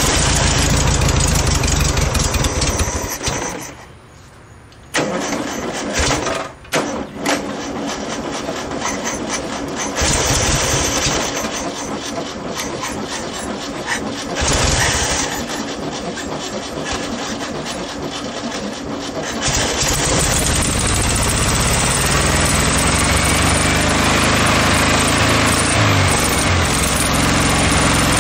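Air-cooled VW Beetle flat-four engine cranking, stalling briefly, sputtering and catching, then running unevenly with the throttle worked by hand. It settles into louder steady running about two-thirds of the way in, sounding like it is firing on only three cylinders.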